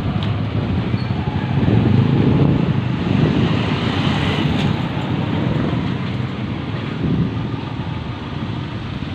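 Street traffic: a motorcycle tricycle with a covered sidecar cab passes close by, its small engine running, over a steady traffic rumble. It is loudest around the middle.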